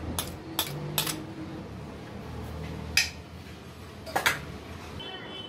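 A metal spoon clinking and scraping against a ceramic plate as ginger-garlic paste is scraped off into a pot. There are several sharp clinks, the loudest about three seconds in and a quick pair just after four seconds.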